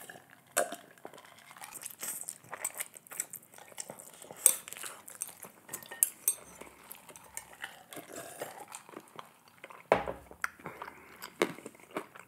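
Close-miked eating sounds: a drink from a glass, then black bean fire noodles being slurped and chewed. Scattered small clicks and clinks of utensil and glass on the dishes run throughout, with a sharper click about four seconds in and a cluster of louder sounds near the end.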